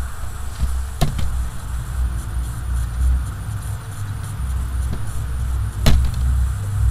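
Steady low rumble of background noise, with a few sharp clicks: two close together about a second in and one louder one near the end.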